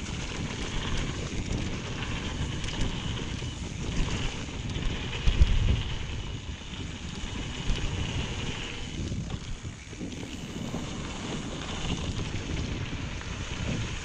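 Wind rushing over the microphone and mountain-bike tyres rolling fast over a dirt trail, with the rattle of the bike over the ground. A loud low thump about five seconds in.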